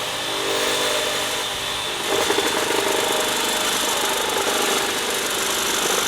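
DeWalt DCS388 60V MAX FLEXVOLT brushless reciprocating saw running under load, its blade stroking rapidly through material; it gets louder about two seconds in.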